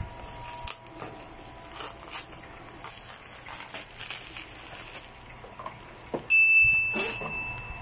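Cardboard box flaps and bubble wrap rustling and crackling as a wrapped item is pulled out by hand. Near the end a loud, steady high tone comes in and holds for about a second and a half.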